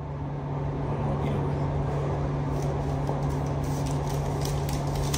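Steady low mechanical hum with an even rushing noise from the restaurant's equipment, fading in over the first second. Faint light paper rustling of chopsticks being handled in their paper sleeve.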